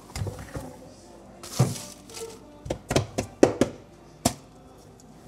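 Knocks and clicks of a plastic jar and its lid being handled and set down on a counter, in a quick run of sharp taps, with a short rustle of a plastic bread bag.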